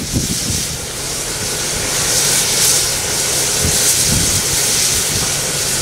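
Steam hissing steadily from a standing 1923 Montreal Locomotive Works 0-6-0 steam switcher locomotive, growing louder about two seconds in.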